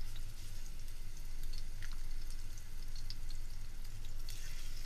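Marinated chicken pieces sizzling in hot oil in a nonstick frying pan as more pieces are dropped in with metal tongs: a steady crackling hiss with a few light ticks, growing stronger near the end as the pan fills.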